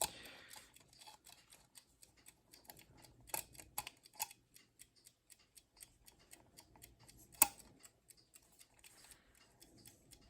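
Irregular small clicks and ticks as the hands of a Westclox alarm clock are turned against its very stiff friction clutch, with one sharp, louder click about seven seconds in.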